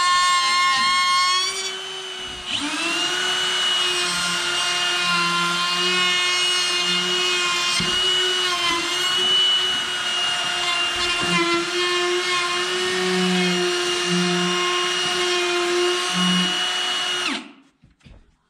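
Milwaukee M18 cordless compact router running at high speed as it cuts a round hole in a wood subfloor: a steady high-pitched whine that sags briefly about two seconds in, picks back up and then stops suddenly near the end.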